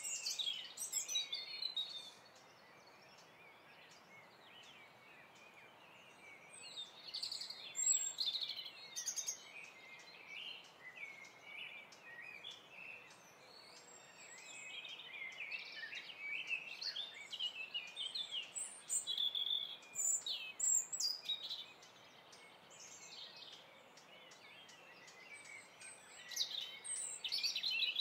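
Several small birds chirping and twittering in scattered bursts over a steady low hiss.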